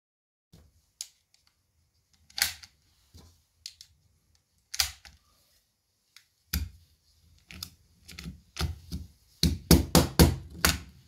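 Single .223 cartridges clicking one at a time into an AR-15 magazine, then, about halfway through, the loaded magazine knocked repeatedly against a wooden bench to seat the rounds, the knocks coming fastest and loudest near the end.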